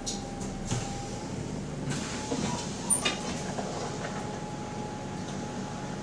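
Bus drivetrain whine inside the passenger cabin: a steady thin tone that steps up slightly in pitch about a second in, over the cabin rumble. Scattered rattles and knocks come from the bus body, the sharpest about three seconds in. The whine is the subtle, weird noise that the title puts down to the differential.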